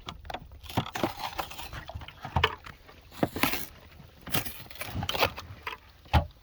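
Shot-up aluminium soda cans and cardboard boxes being handled: irregular clinks, knocks and crinkling as the damaged cans are moved about and the boxes pulled open.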